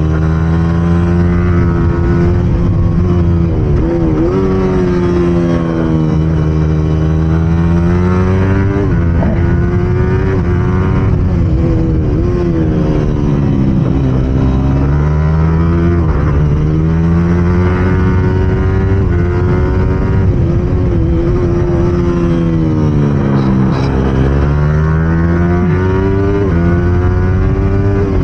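Yamaha R15 race bike's single-cylinder engine at racing revs, heard from on the bike. Its pitch drops over and over as the rider slows into corners and climbs again on the exits.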